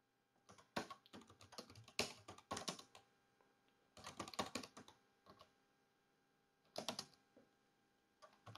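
Quiet typing on a computer keyboard, in bursts of keystrokes with short pauses: a long flurry in the first three seconds, another around four seconds, and a few keys near seven seconds and at the end.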